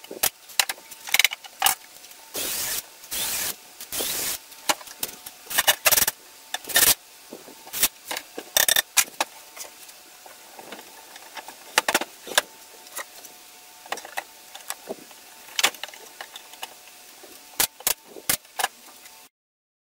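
Cabinet assembly: a power drill driving screws into melamine cabinet panels in short bursts, a few in quick succession early on, among many sharp knocks and clatters of the panels and tools being handled.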